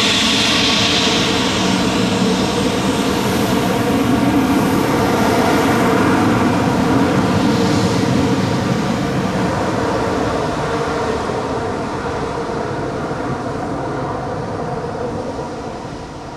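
The twin General Electric CF34-10E turbofans of an Embraer ERJ-195 airliner on the ground after landing: a steady, many-toned engine whine over a rushing hiss. The sound fades gradually over the last several seconds.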